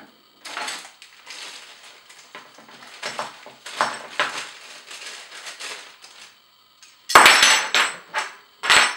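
Plastic parts bag crinkling and small hard fittings of a glass bottle cutter kit clinking and rattling in irregular bursts, with two louder bursts of clatter about seven seconds in and just before the end as the parts are handled and set out on the table.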